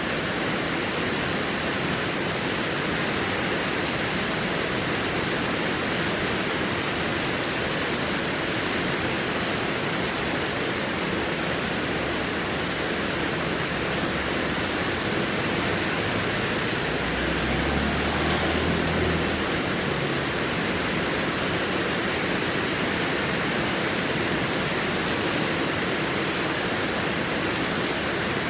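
Heavy rain falling steadily as a dense, even hiss. A low rumble swells and fades for a few seconds past the middle.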